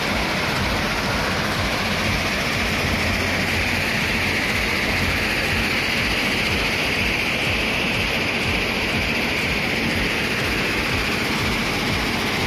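Steady roar of rock-crushing plant machinery producing rock dust, running evenly without a break.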